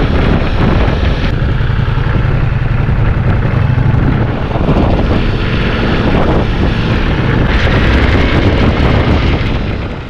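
Heavy wind rush buffeting the microphone on a moving motorcycle, with the Ducati Multistrada V4S engine running low underneath. The noise drops away near the end as the bike slows.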